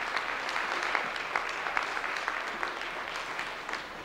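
Audience applauding, many hands clapping at once, slowly dying down toward the end.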